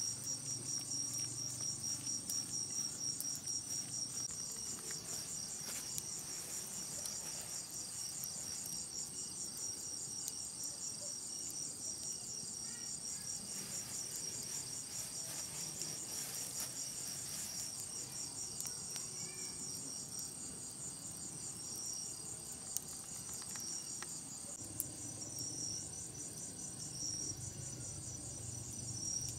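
Night insects, crickets, trilling in a steady high-pitched pulsing chorus. Two sharp clicks about two seconds apart come in the latter part.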